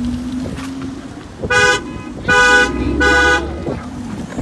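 Car horn honking three times in quick succession, each blast short, over a car engine running.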